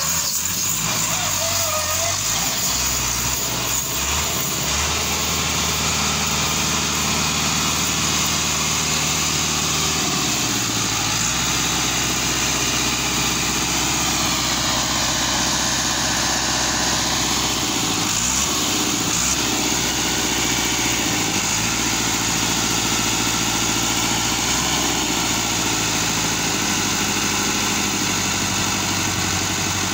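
Massey Ferguson tractor's diesel engine running steadily while its hydraulics tip a fully loaded trailer of soil; the engine note shifts a couple of times.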